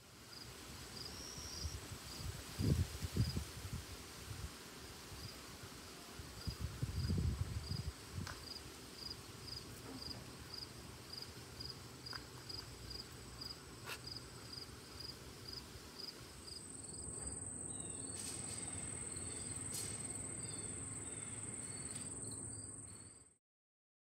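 Crickets chirping, a short high chirp about twice a second, with a couple of low rumbles about three and seven seconds in. About two-thirds through, a continuous high-pitched insect trill starts and holds steady.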